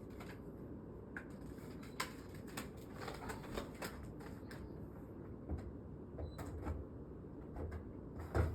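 Scattered clicks and knocks of a window air-conditioner unit's plastic and metal brackets and panels being handled and pushed into place by hand, with a sharper knock near the end.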